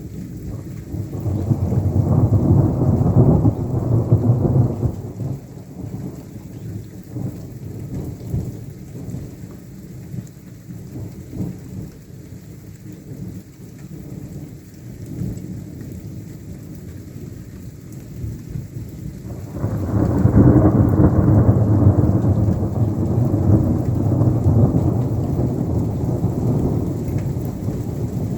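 Thunder rolling twice during steady rain: a long deep rumble swells up about a second in and dies away after a few seconds, then a second, louder roll starts suddenly about two-thirds of the way through and is still rumbling at the end.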